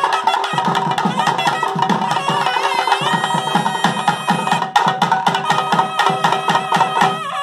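Nadaswaram (South Indian double-reed horn) playing a held, wavering melody over fast, dense barrel-drum strokes. The reed note breaks off near the end.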